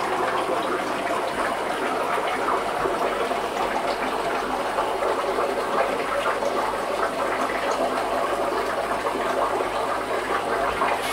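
Aquarium water circulation: a steady splashing, bubbling rush of water churning at the surface of a fish tank.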